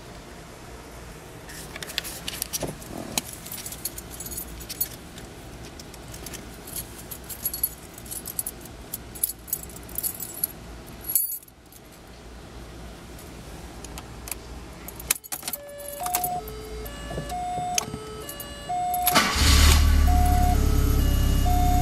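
Keys jangling and clicking, with sharp clicks in the first half. Near the end, the 1992 VW Golf Cabriolet's 1.8-litre four-cylinder engine starts and settles into a steady idle. A simple repeating tune of single notes begins a few seconds before the engine starts and carries on over it.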